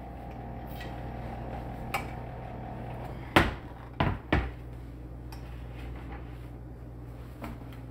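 A tall stainless steel pot being handled on a smooth glass cooktop: three sharp metal clanks a little over three seconds in, over a steady low hum.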